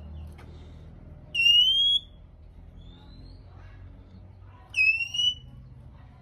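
Male Oriental magpie-robin giving loud, drawn-out, slightly rising whistles, twice: about 1.5 s and 5 s in, with a fainter short rising note between them.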